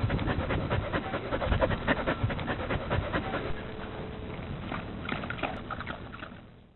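A dog panting in quick, noisy breaths, fading away near the end.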